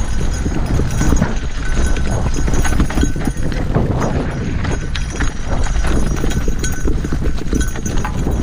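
Mountain bike riding fast down loose rocky singletrack: tyres crunching over stones and the bike rattling and clattering on the rough ground without a break, over a steady low rumble of wind buffeting the microphone.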